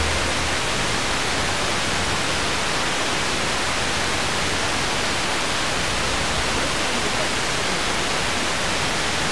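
Steady hiss of a Tecsun PL-606 portable FM radio tuned to 89.7 MHz with no station coming through: the aircraft-scatter reflection of BBC Radio 2 has faded out, leaving only receiver noise. A last low note from the station dies away in the first half second.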